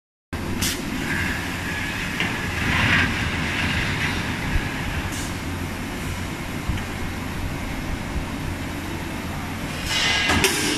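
Hydraulic pipe-punching machine running with a steady low hum. A hiss rises and falls in the first few seconds, and sharp knocks come once near the start, once about halfway and several times near the end.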